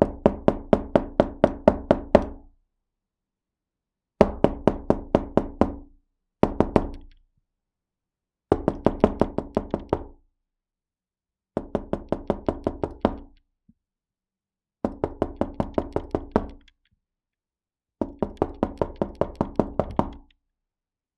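Knuckles knocking on an indoor wooden door in quick runs of evenly spaced raps, each run lasting one to two seconds, with short pauses between, seven runs in all; the door panel rings low after each rap.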